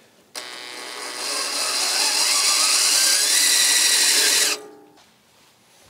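Drill driving a self-tapping screw into the patio heater's metal base, the motor whine rising in pitch and loudness for about four seconds before it stops.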